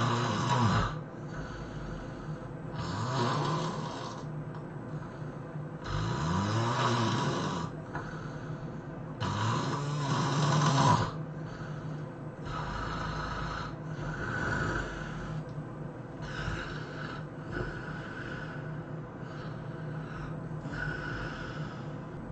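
A person snoring heavily in sleep. Four long, loud, rasping snores come about three seconds apart, each rising and falling in pitch. In the second half they give way to shorter, softer snoring breaths.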